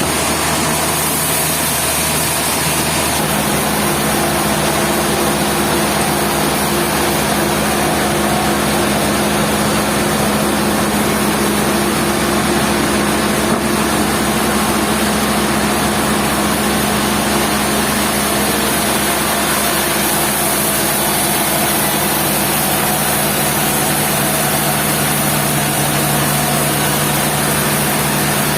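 Industrial sawmill machinery running steadily: a loud, even mechanical din with a steady hum whose tone shifts about three seconds in.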